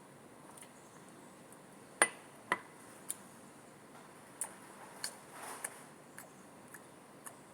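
Scattered light clicks and taps of small objects being handled, the two loudest about two seconds in, with a brief soft rustle in the middle.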